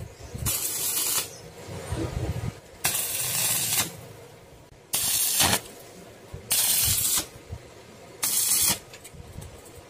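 Stick (arc) welder striking short tack welds on a square steel tube frame: five separate bursts of crackling hiss, each lasting about half a second to a second, with short pauses between.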